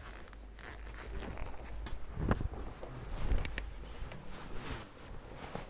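Rustling and creaking of a black leather jacket being swung on and shrugged into, with scattered clicks of handling; the loudest rustles come about two and three and a half seconds in.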